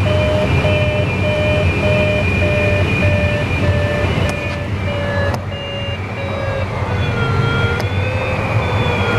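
Airflow rushing over a glider's canopy, with an audio variometer beeping at one steady pitch about twice a second. About six seconds in the beeps turn into a continuous, slowly wavering lower tone. Two sharp clicks come just before and just after the middle.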